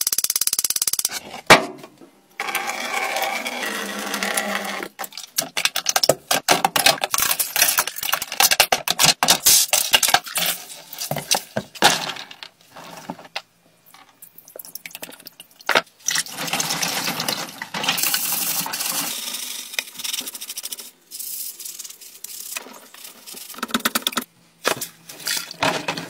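Loose plastic keycaps and keyboard case parts clicking and clattering against each other, in quick runs of sharp clicks broken by short pauses.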